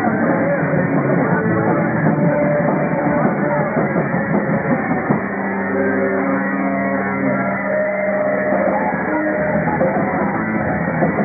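Rock band playing live, loud and continuous, with drum kit and electric guitar; a few long held notes come in about halfway through.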